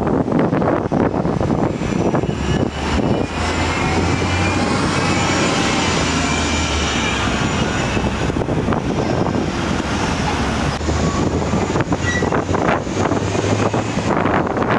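Orion VII city transit bus pulling away from the stop and accelerating: engine running with a high whine that rises slowly over the first seconds, a steady low hum under it, and traffic and wind noise around it.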